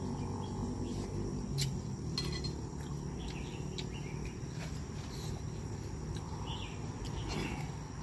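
Insects chirring steadily in a continuous high-pitched drone, with a few light clicks of a metal spoon against a plate.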